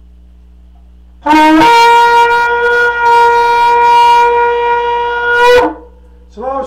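Shofar sounded in one long blast of about four seconds: it starts on a low note, jumps up to a higher note and holds it, then drops away at the end.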